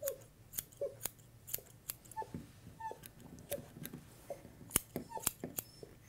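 Grooming scissors snipping through a puppy's coat: a run of sharp, short snips at an uneven pace, roughly two or three a second, as the hair around the foot and back of the leg is tidied.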